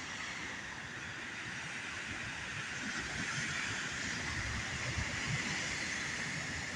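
Steady hiss of wind and distant surf, swelling slightly midway, with an uneven low rumble of wind on the microphone.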